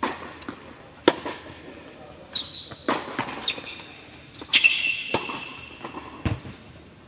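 Tennis rally on an indoor hard court: sharp pops of a tennis ball struck by rackets and bouncing, roughly every one to two seconds, with a couple of brief high squeaks. The hits ring on in the large hall.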